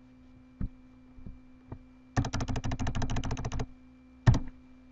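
Computer keyboard keys clicking: a few single keystrokes, then a rapid run of about twenty keystrokes lasting a second and a half, then two quick clicks close together.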